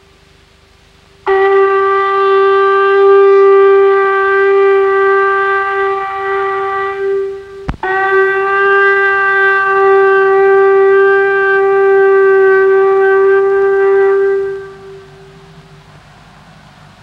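Horn blown in one long, steady note. It is cut by a sharp click a little past the middle, then held again until it fades out near the end.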